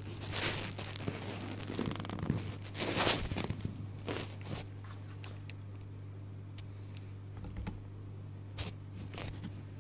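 Rustling and scattered clicks and knocks of a rooftop tent's canvas and fittings being handled, over a steady low hum.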